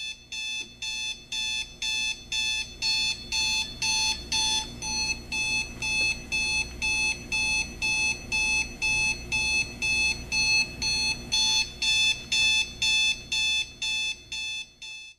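Westclox 70044B electric alarm clock's alarm sounding: a rapid, even train of high-pitched electronic beeps, about two a second, that cuts off suddenly at the end.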